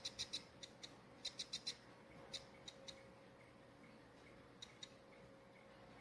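Faint, short, high electronic chirps in irregular clusters from a satellite finder's beeper, sounding as it picks up bursts of signal. A few quick chirps at the start, a run of four or five about a second and a half in, scattered ones after that and a pair near the end, over a faint steady hum.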